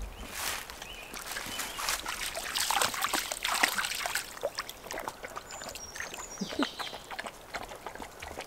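Irregular splashing and crackling steps through shallow meltwater puddles and wet leaf litter, as a dog and a walker wade along a flooded forest floor; busiest from about two to four seconds in.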